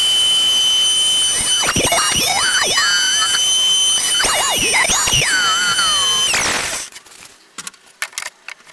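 Handheld electric router (Katsu) running at a high whine while its bit cleans up drilled slots in wood; the pitch dips and recovers several times as the cutter bites. The motor cuts off about seven seconds in, followed by a few light knocks.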